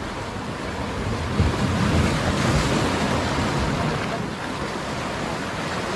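Sea waves washing onto the shore, with wind buffeting the microphone. The surf swells louder about a second and a half in and eases off after about four seconds.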